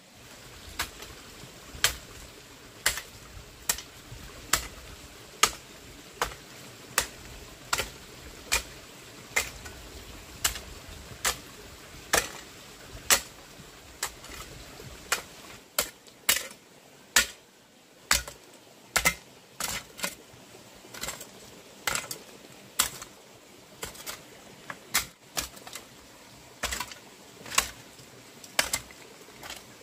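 Hand tool striking repeatedly: sharp blows a little more than once a second, coming faster and less evenly after a short pause about halfway through.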